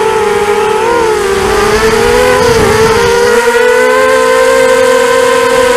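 Small FPV quadcopter's electric motors and propellers whining as it flies, several close tones heard from the onboard camera. The pitch wavers up and down as the throttle is worked about a second in, then settles steady and slightly higher from about three and a half seconds.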